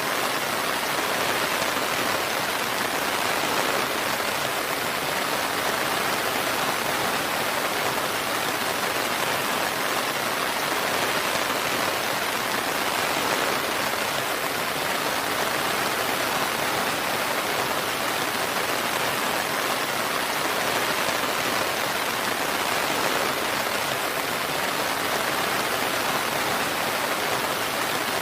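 Steady rain with an even hiss, no thunder or single drops standing out.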